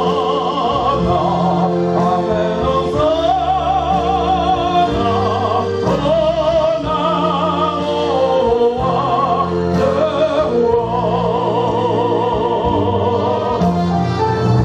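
A man singing a slow gospel song with heavy vibrato through a microphone and PA, over sustained keyboard chords.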